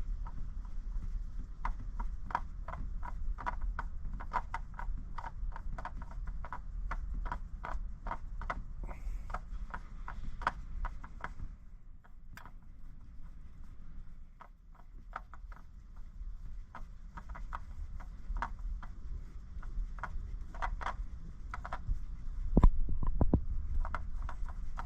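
Hand tools working the spin-on oil filter loose on a Toyota 1MZ-FE V6: a run of irregular metallic clicks and knocks, a few a second, sparser in the middle, with a louder clatter near the end, over a steady low hum.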